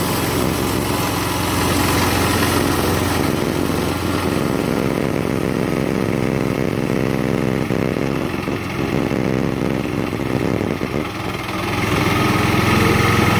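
Kohler gas engine of a Woodland Mills HM126 portable bandsaw mill running steadily while the band blade saws through a poplar log. The sound eases a little in the later part and comes back up near the end.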